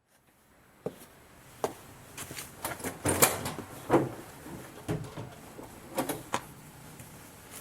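A series of short knocks and clacks at uneven intervals, like things being handled and set down, over a faint steady hiss.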